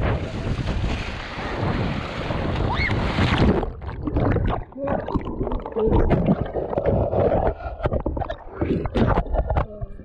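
Wind buffeting a camera microphone over choppy ocean waves as a tandem kayak rocks, then the kayak capsizes about three and a half seconds in. The sound turns muffled underwater, with bubbling, sloshing and knocks, until the camera surfaces near the end.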